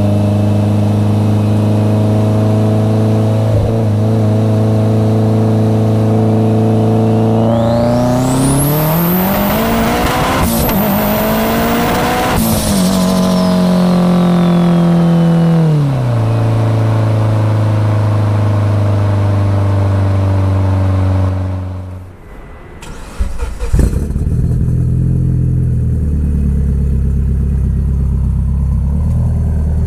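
Mitsubishi Lancer Evolution X GSR's big-turbo 2.0-litre four-cylinder, heard inside the cabin. It cruises at steady revs, then accelerates hard for a few seconds with a high turbo whine climbing alongside, and the revs fall back to a steady cruise. Near the end the same car is heard at its tailpipes, idling with an uneven burble.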